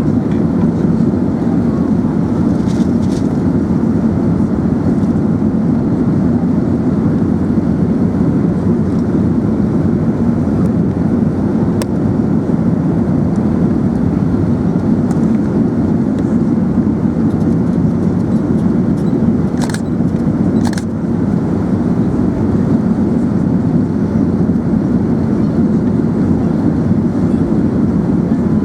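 Steady low rumble of airflow and engine noise inside the cabin of an Airbus A380, with a few light clicks and two sharper ones about twenty seconds in.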